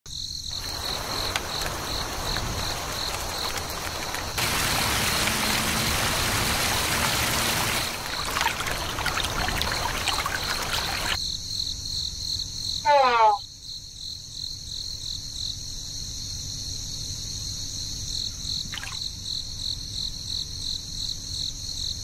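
Crickets chirping in a steady pulsing trill over a rush of running water that cuts off suddenly about eleven seconds in. About thirteen seconds in, a short loud whistle falls steeply in pitch.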